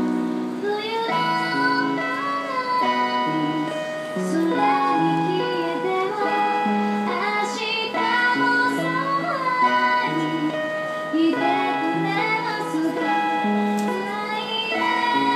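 A woman singing a song into a microphone, her voice holding and sliding between long notes, over a steady instrumental accompaniment of sustained chords.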